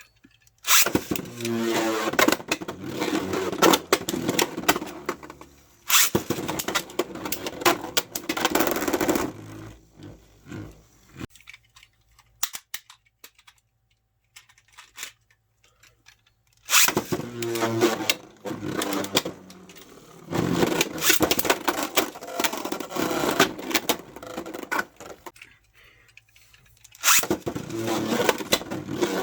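Hyperion Burn and Helios Volcano Beyblade Burst tops launched into a plastic Beyblade stadium for test battles. There are three rounds, each opening with a short whirr from the launchers, followed by several seconds of spinning, scraping and rapid clashing clicks, with quiet gaps between rounds.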